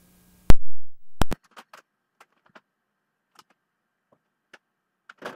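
Loud pop as the VHS tape's audio cuts out at a break between recordings, the hiss stopping with it, then a second pop under a second later. After that there are only faint scattered ticks.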